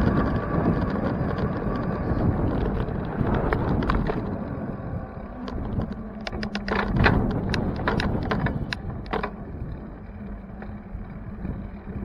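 Wind and road rumble on a bicycle-mounted camera during a street ride. About halfway through comes a run of sharp, irregular clicks and rattles, with a faint steady hum underneath.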